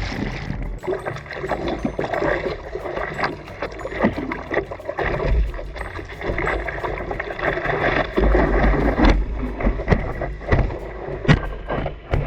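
Sea water splashing and sloshing in the surf, with wind buffeting the microphone in uneven low rumbles.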